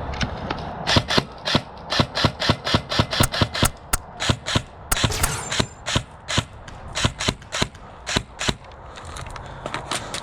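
Airsoft guns firing a rapid string of sharp shots, roughly three or four a second at an uneven pace, starting about a second in and stopping near the end.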